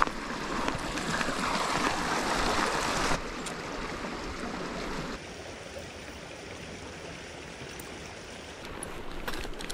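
Small creek running, a steady rush of water whose level drops abruptly twice. A few light clicks come near the end.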